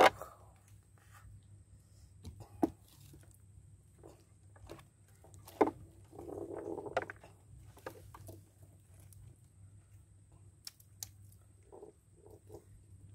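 Scattered small knocks and clicks from handling gear in a wooden boat, with a short rustle about six seconds in, over a faint steady hum.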